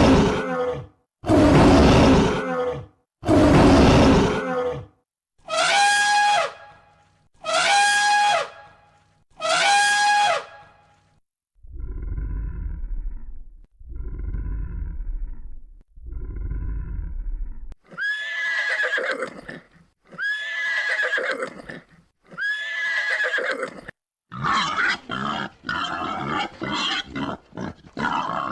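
Farm animal calls played one kind after another, each call repeated three times in a row, a horse whinnying among them. Near the end comes a quick run of short, choppy calls.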